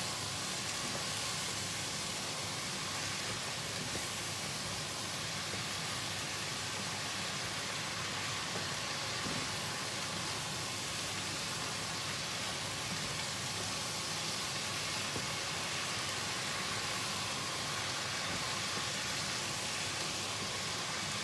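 Stir-fried vegetables and bean sprouts sizzling steadily in hot oil in a pan as they are stirred and heated through.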